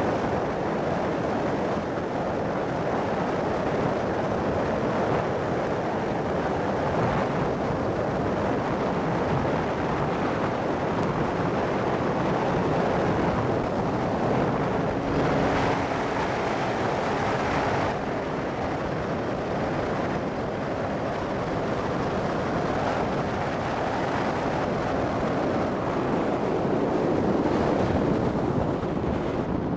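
Steady wind rush over the microphone of a moving motorcycle, with engine and road noise blended underneath.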